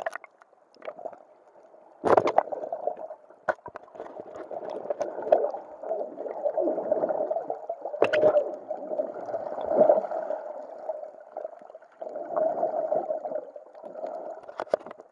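Muffled underwater gurgling and bubbling, heard through an action camera's waterproof housing, as a swimmer breathes out bubbles. A sudden loud splash about two seconds in as the camera goes under, and a few sharp clicks, the loudest about eight seconds in.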